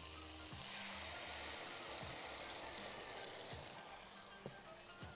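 Tomato sauce hitting a hot pan of sautéed sausage and sizzling. The hiss swells about half a second in, then slowly dies down.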